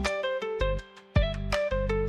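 Gentle background music: a melody of short notes over bass notes, with a brief pause about a second in.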